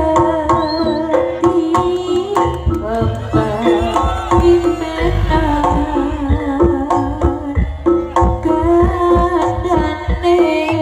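Live East Javanese jaranan ensemble playing: a sustained, wavering melody line over quick, busy hand-drum strokes.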